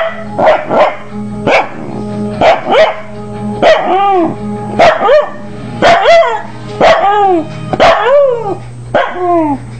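A corgi barking and howling along to television theme music: a few short sharp barks, then a run of drawn-out yowls that rise and fall in pitch, about one a second. The dog vocalizes this way whenever it hears this theme song.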